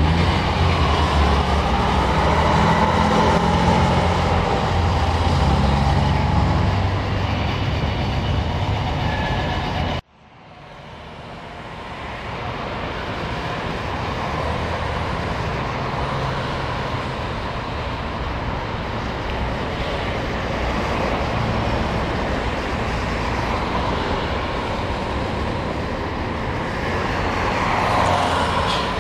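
A city bus's engine running as the bus pulls away, then an abrupt cut about ten seconds in to steady street traffic noise that swells near the end as a double-decker coach approaches.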